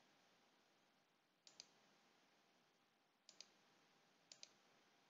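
Three faint computer mouse clicks, each a quick double tick, spaced a second or two apart over near silence.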